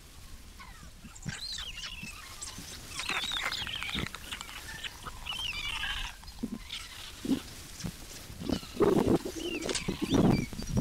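White stork nestlings calling in the nest: a run of high, squeaky gliding calls, then louder, lower rasping bursts in the last couple of seconds.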